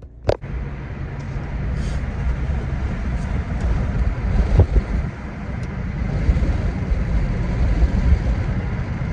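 Car driving, heard from inside the cabin: steady low engine and road rumble. A single sharp click comes just after the start.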